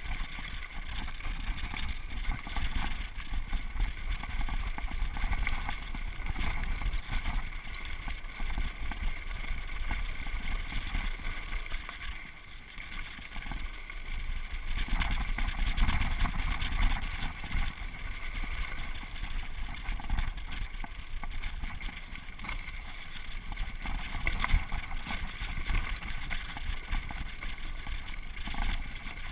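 Downhill mountain bike riding fast over a dirt and rocky singletrack: wind rushing over the microphone, with tyres on the loose ground and a steady patter of small knocks and rattles from the bike. The rush eases briefly about twelve seconds in.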